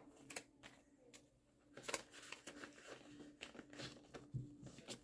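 Faint crinkling and rustling of a clear plastic zipper pouch and paper dollar bills being handled as the bills are slid into the pouch in a ring binder, with a few small clicks and taps.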